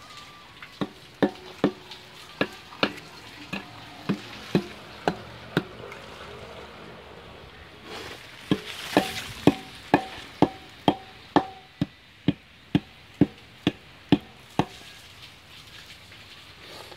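A brick repeatedly knocking on the cast-iron casing of a tubewell water pump, each blow ringing briefly off the metal, as packing is tamped into a leaking seam. The blows come about two a second, in two runs: about ten in the first few seconds, then some sixteen from about halfway.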